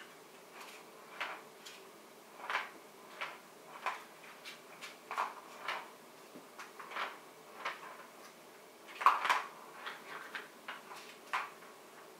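A plastic ball-track cat toy rattling as a kitten bats the balls inside it: irregular plastic clacks and short rolling runs of a ball along the track, with the loudest clatter about nine seconds in.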